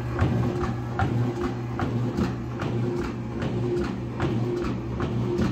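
Heart pump driven by an electric gearmotor running steadily: a low motor hum with a higher whine that swells about once a second, each pump stroke, and regular clicks about two and a half times a second.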